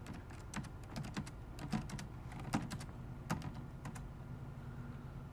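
Computer keyboard typing: about a dozen irregular key presses over roughly four seconds, then the typing stops. A faint steady hum runs underneath.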